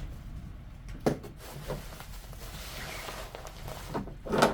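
Handling noises from unpacking a sewing machine case: light rustling of packing material with a few knocks, one about a second in and a louder one near the end.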